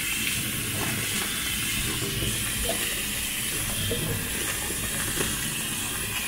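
Kitchen tap water running steadily into a plastic bag of rocket leaves, draining out through holes poked in the bag's bottom as the leaves are rinsed.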